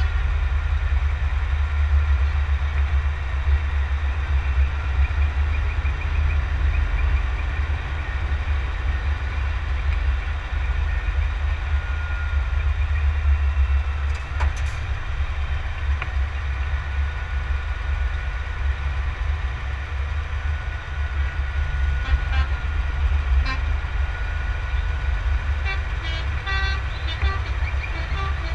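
Steady low rumble of a Scania show truck driving in a slow parade, mixed with wind buffeting on the microphone. Truck horns toot now and then, with a longer held note about twelve seconds in and more toots near the end.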